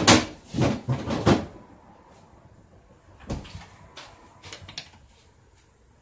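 Kitchen clatter: a quick run of loud knocks and bangs in the first second and a half, a single knock about three seconds in, then a few light taps near the end, of the kind made by cupboard doors and utensils being handled.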